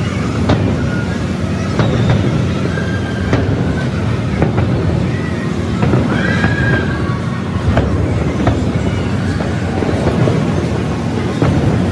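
Aerial fireworks display: a continuous low rumble of bursting shells with sharp bangs every second or two. A few brief high whistling tones rise over it around the middle.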